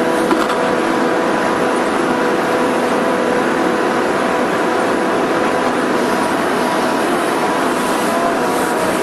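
Excavator running steadily under work, its engine and hydraulics giving a loud, even drone with a steady high whine on top.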